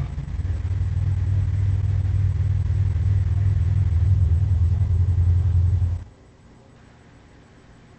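Gorosaurus monster sound effect: a deep, low-pitched growl held steadily for about six seconds, then cutting off abruptly.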